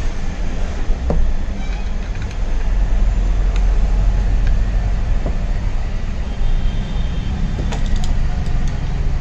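A steady low rumble with a few small, sharp clicks and taps of metal parts being handled during assembly of a BDM programming frame.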